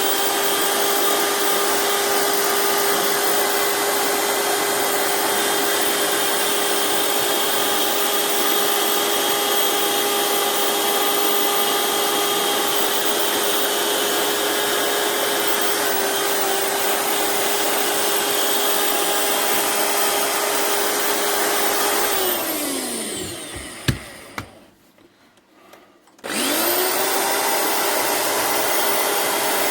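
Small electric power tool fitted with a wire brush attachment, running at a steady high whine as it brushes down the metal of an old hand drill. About 22 seconds in it is switched off and winds down, falling in pitch. There is a knock, a pause of about two seconds, and then it starts up again and runs on.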